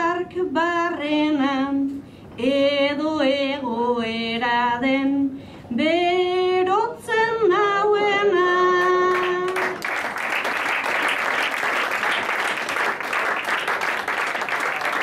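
A woman singing a Basque bertso unaccompanied into a microphone, phrase by phrase, ending on a long held note a little under ten seconds in. The audience then breaks into applause.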